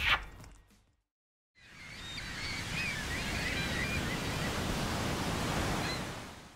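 Ocean surf washing steadily, fading in after a moment of silence, with a few faint high bird chirps over it.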